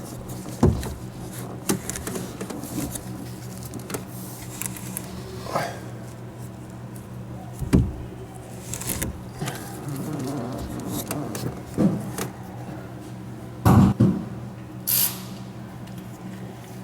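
Hand work on a pickup's sunroof motor up behind a bowed-down headliner: scattered knocks, clicks and scrapes of hands and tools on the roof panel and motor, the loudest knocks coming near the end, over a steady low hum.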